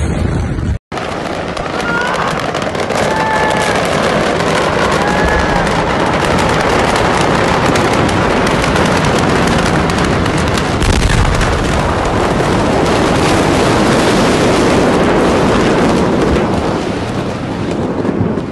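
A large warehouse fire burning with dense, rapid crackling and popping, like fireworks going off in quick succession, continuous and loud after a brief cut about a second in.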